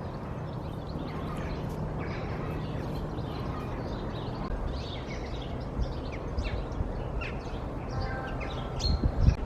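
Small birds chirping and tweeting in quick, scattered calls over a low outdoor rumble. A few loud low thumps come near the end.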